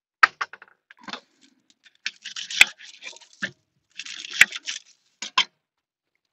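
A kitchen knife cutting through a whole onion on a wooden cutting board, twice: each stroke a short crisp crunch ending in a sharp knock of the blade on the board. A few light clicks and knocks come before and after the cuts.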